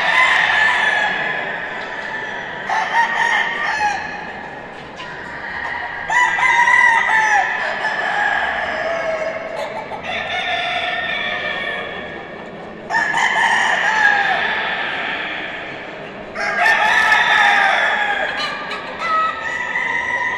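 Several gamecocks crowing in turn, a long crow starting every three seconds or so, sometimes overlapping the last.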